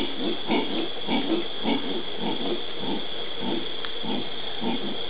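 Black-and-gold howler monkey howling: a rhythmic run of deep, rough grunts, about three a second.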